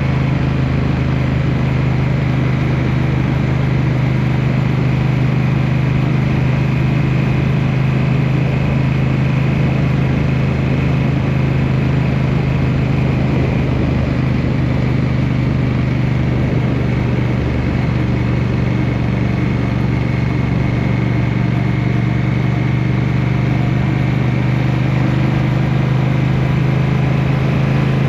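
Motorcycle engine running steadily at highway cruising speed, its pitch holding nearly constant with only slight shifts.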